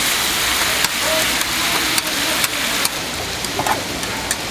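Tteokgalbi (Korean minced-beef patties) sizzling as they cook: a steady hiss with scattered sharp pops.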